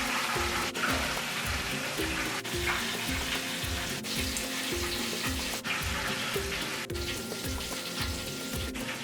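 Flour-coated snapper pieces frying in hot oil with a steady sizzle, under background music with a steady beat.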